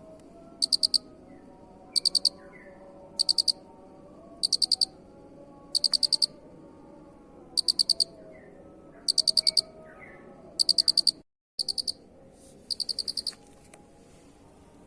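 Cricket chirping: high, evenly repeated chirps about once every second and a half, each a quick run of four or five pulses, over a faint low background murmur. The sound cuts out completely for a moment about eleven seconds in.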